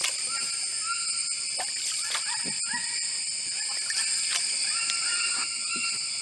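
Steady high-pitched drone of an insect chorus in flooded rainforest, with many short, repeated chirping calls layered over it.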